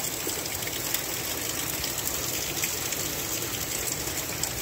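Rain falling steadily on pavement, lawn and tree leaves during a thunderstorm: an even hiss with a fine patter of drops.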